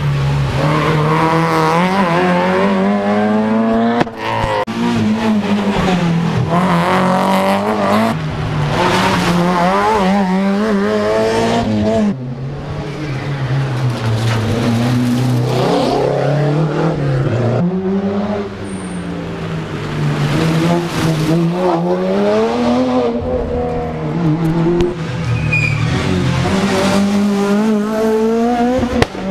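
Rally cars' engines revving hard as the cars come through a tight corner one after another, the pitch falling as they slow and climbing again as they accelerate away. Each car's run cuts off abruptly every few seconds and the next begins.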